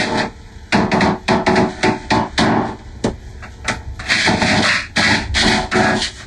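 Ten overlaid Fisher-Price Laugh & Learn puppy toy sound tracks, heavily effect-processed: a loud, irregular jumble of sharp clicks and short noisy bursts.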